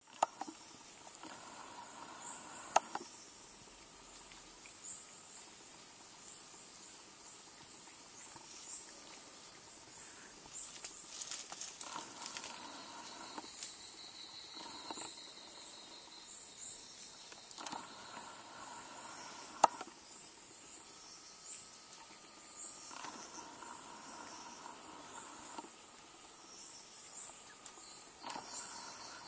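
Rainforest ambience: a steady high insect buzz with small repeated chirps above it, broken by three sharp clicks or snaps, the loudest about two thirds of the way through.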